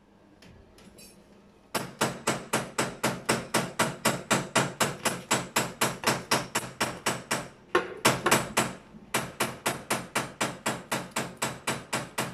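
Kitchen knife rapidly chopping fresh ginger on a cutting board, about five cuts a second, with a short break about eight seconds in.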